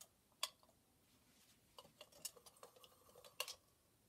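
Painting tools being handled: a few faint, sharp clicks and light clinks, scattered through near quiet.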